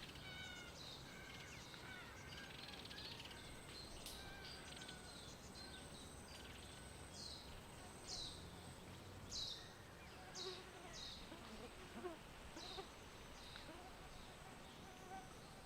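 Faint woodland ambience with a steady low hiss and birds calling. The calls are a few short pitched notes at first, then a run of quick high chirps falling in pitch, about one a second, from about seven seconds in.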